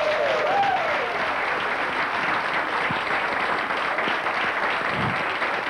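Audience clapping steadily, with a few whooping cheers in the first second.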